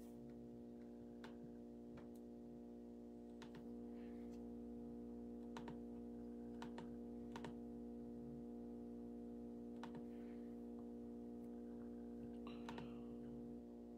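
Faint, irregular clicks like typing on a computer keyboard, over a steady low electrical hum.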